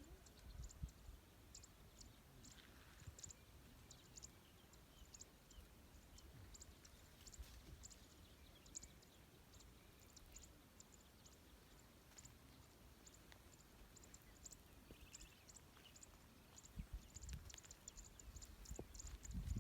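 Near silence: faint outdoor background with scattered faint, high, irregular ticks and a low rumble.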